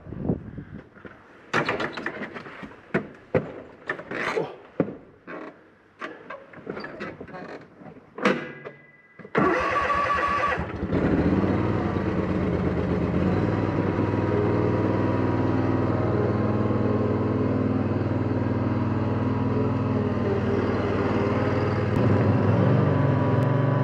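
Irregular footsteps and knocks, then about nine seconds in the engine of a Husqvarna ride-on mower is cranked by its starter for about a second and a half, catches and runs steadily at idle. It gets slightly louder near the end as the mower pulls away.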